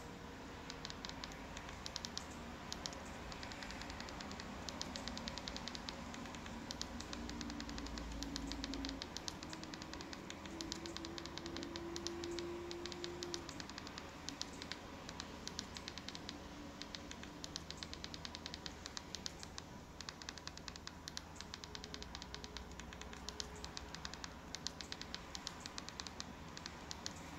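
Fire TV Stick remote's buttons clicking in quick runs of many presses a second, with short pauses between runs, as the cursor is stepped across an on-screen keyboard letter by letter.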